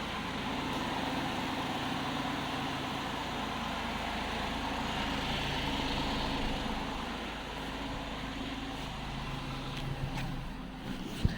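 Tata Tiago's 1.2-litre three-cylinder petrol engine idling steadily with the AC on, heard from outside the car. A light click comes near the end.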